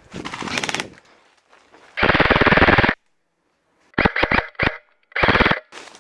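Airsoft electric guns (AEGs) firing on full auto: a short burst at the start, a loud burst of about a second, then four quick short bursts and one more near the end.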